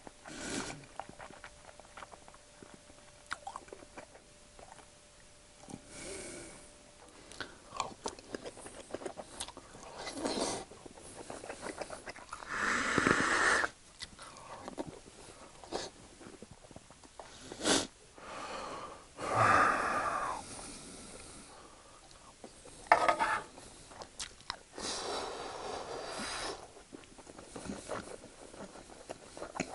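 A man chewing a full mouthful of scrambled eggs, with wet mouth sounds and small clicks, and a few loud breathy puffs of breath between bites, each lasting a second or two.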